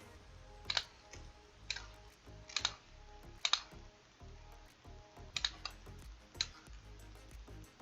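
Background music under sharp, irregular clicks about once a second, from tightening the new kitchen faucet's nuts.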